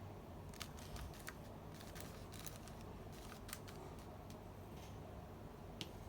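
Scattered light clicks and crackles of toy-cube packaging being handled and opened by hand, irregular and a few per second at most, over a low steady hum.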